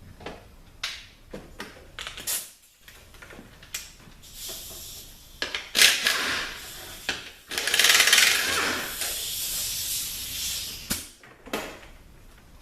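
A ratchet wrench working a fastener on a THM-350 transmission case: sharp metal clicks, then a few longer stretches of loud rasping ratcheting about halfway through.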